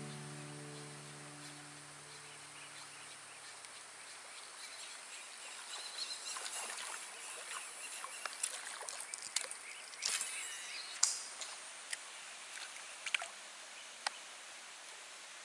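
Guitar background music fading out over the first few seconds, then faint outdoor ambience. From about six to fourteen seconds in comes a run of small splashes and sharp clicks as a topwater lure is skittered across the lake surface.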